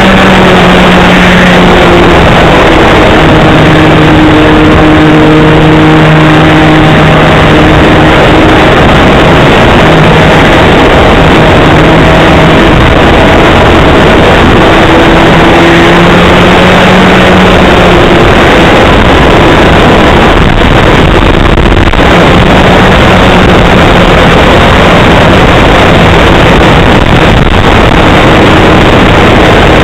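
Small engine of an RC model airplane running hard in flight, heard loud from a camera mounted on the plane. Its note drifts up and down as the plane manoeuvres.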